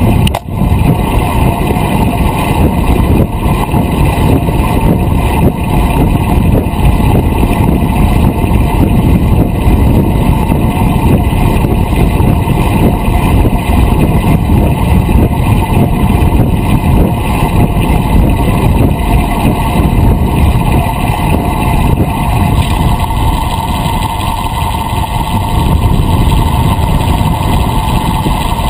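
Wind buffeting a bicycle-mounted action camera's microphone at riding speed, a loud steady rumble mixed with the hum of the road bike's tyres on asphalt. It cuts out briefly about half a second in.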